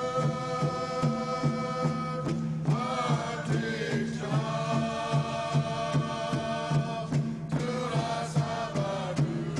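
Background music: chanting voices in held phrases over a steady drum beat.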